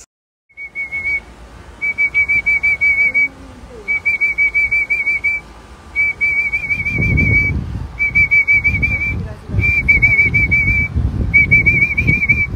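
A warbling, trilling whistle blown in repeated blasts of about a second each, with short gaps between them. Low rumbling noise joins underneath about halfway through.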